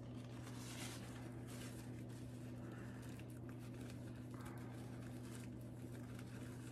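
Faint rustling of a thin paper napkin as its plies are peeled apart by hand, over a steady low hum.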